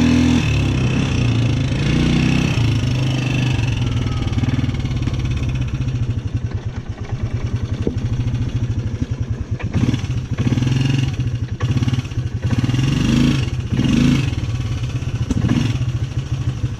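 Polaris Sportsman 300 ATV engine running as the quad is ridden, with the throttle opened and closed several times so the pitch rises and falls, mostly in the second half.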